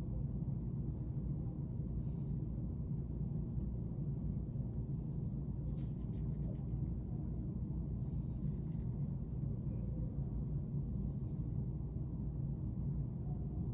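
Steady low background rumble of a small room, with two brief clusters of faint clicks, one about six seconds in and another a little before nine seconds.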